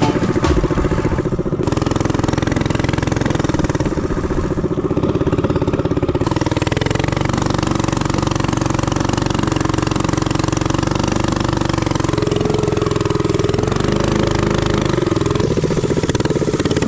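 Mini bike's small engine running steadily, its pitch shifting slightly a few times as the throttle changes.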